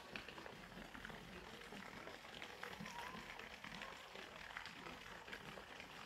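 Faint garden ambience with soft, irregular crackling and rustling from footsteps on a bark-mulch path.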